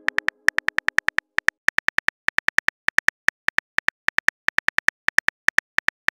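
Simulated phone-keyboard typing sound of a texting-story app: a fast run of short, identical high clicks, about six a second with brief pauses, one per letter as a message is typed out.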